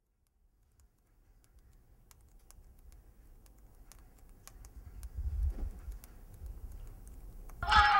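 Mobile phone keypad buttons being pressed, a run of faint irregular clicks over a low rumble. Near the end a louder phone ringing tone starts.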